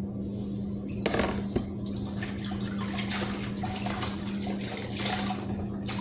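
Kitchen tap running into a sink, the water splashing and hissing, heaviest in the second half, over a steady low hum.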